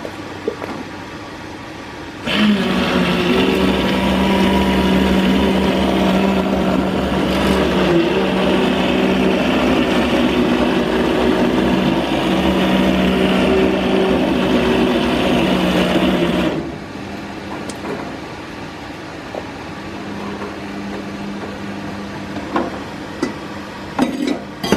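Handheld electric stick blender running steadily in a large stock pot, puréeing boiled sprats and sardines so that no bones are left. The motor starts about two seconds in with a steady hum, runs for about fourteen seconds and cuts off suddenly.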